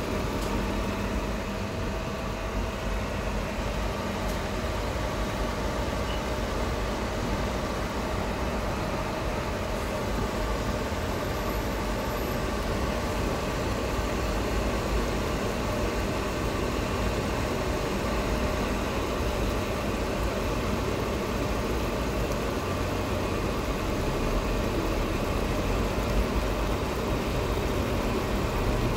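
Steady mechanical hum over a constant noisy background, unchanging throughout, with no distinct events.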